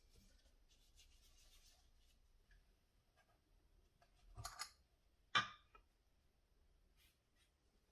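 Quiet handling of tools and engine parts: faint scraping, then two sharp knocks about halfway through, the second the louder, and a few light clicks near the end.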